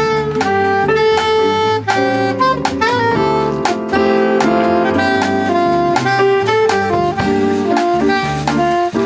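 Small jazz band playing live: a saxophone carries the melody in long held notes over Roland RD-700 stage piano chords and a drum kit.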